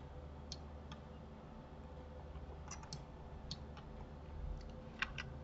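Scattered computer mouse and keyboard clicks, about nine, irregularly spaced and some in quick pairs, over a faint steady hum.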